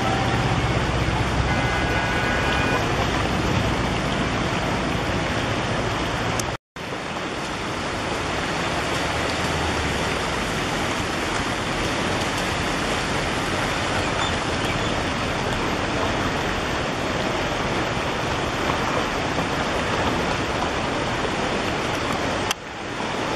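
Floodwater rushing over an overflowing low bridge: a steady, even rush of water, cut by a brief total silence about seven seconds in.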